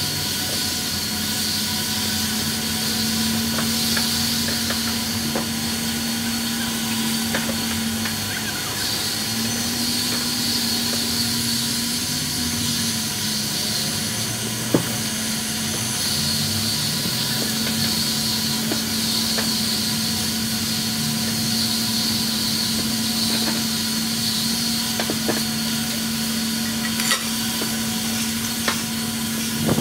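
Self-serve car wash high-pressure wand spraying water over a car, a steady hiss over a low hum, with one sharp tap about halfway through.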